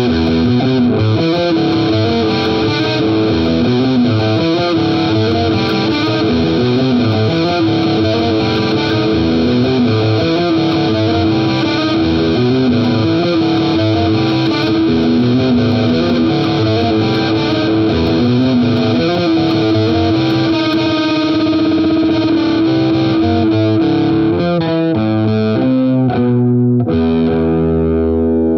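Distorted electric guitar playing a repeating riff, a held higher note returning over a moving lower line. The pattern changes near the end, with a lower, duller passage.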